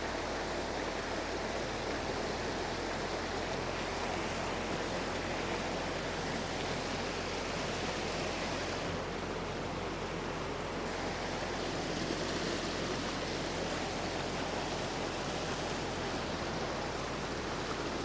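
Steady rush of a fast-flowing river pouring over boulders and small rapids.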